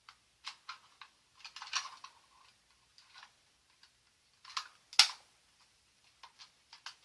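Small plastic items being handled and set down during unboxing: irregular light clicks and rustles, with one sharp click about five seconds in.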